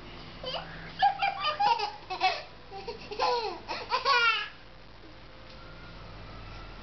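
A young child laughing in a string of short bursts with falling pitch, which stops about two-thirds of the way through.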